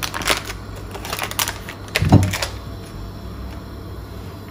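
Foil butter wrapper crinkling and a knife clicking as a piece of butter is cut off, a few sharp rustles and clicks, with a louder knock about two seconds in.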